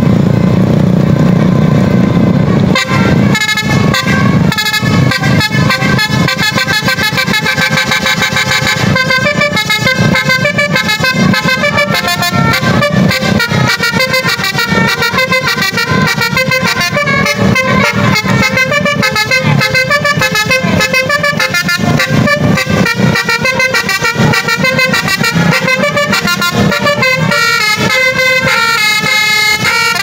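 Indonesian bus telolet basuri horn: a multi-tone musical air horn playing fast melodies. It opens with a low held sound, and about three seconds in breaks into rapid runs of short, stepping notes that keep going.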